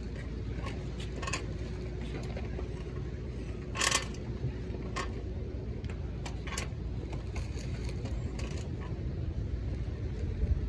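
Steady low street rumble of traffic, with scattered small clicks and clinks and one short, louder clatter about four seconds in.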